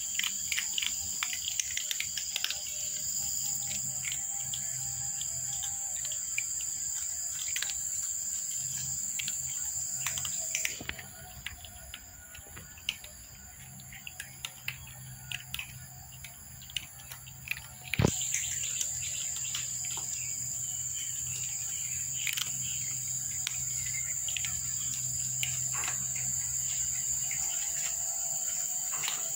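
Cats crunching dry kibble, many small crisp clicks, over a steady high-pitched insect drone. The drone drops out for several seconds midway and comes back just after a single sharp knock.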